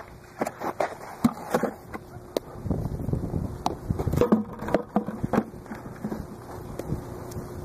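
Scattered sharp knocks and scuffs of a softball drill: quick footwork on infield dirt, a softball caught in a leather glove and dropped into a plastic bucket, with a faint steady hum underneath.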